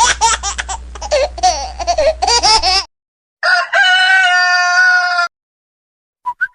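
Comic ringtone sound effect: a rapid run of short warbling, laughter-like calls for about three seconds, then a rooster crowing in one long held call, with a few faint chirps near the end.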